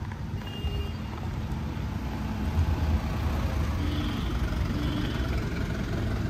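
Automatic Mitsubishi Pajero Sport being driven: a steady low rumble of engine and road noise, with a few faint short high tones now and then.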